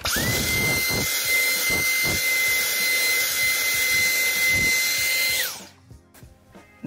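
Cordless stick vacuum switched on and cleaning footwell carpet: its motor whine rises quickly to a steady high pitch over a rushing hiss. It winds down and stops about five and a half seconds in.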